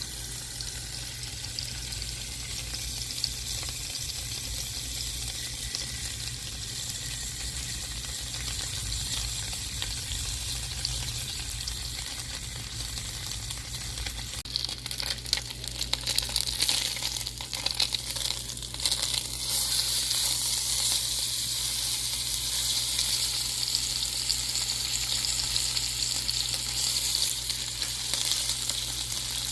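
A5 wagyu rib cap frying in a hot pan: a steady sizzle that grows louder, with crackling spatters, from about halfway through.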